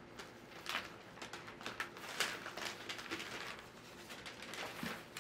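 Tissue paper rustling and crinkling in irregular crackles as a pair of shoes is unwrapped and lifted out of its box.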